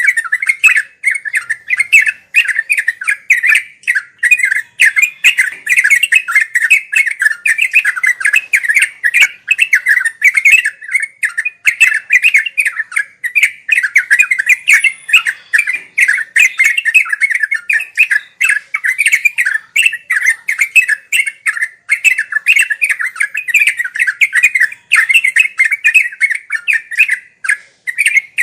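Yellow-vented bulbul (trucuk) singing in a rapid, unbroken chatter of short bubbling notes, the continuous 'ngeropel' song used to tutor young caged birds.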